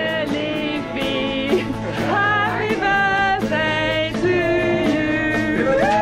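Background music: a song with a singing voice over steady instrumental backing.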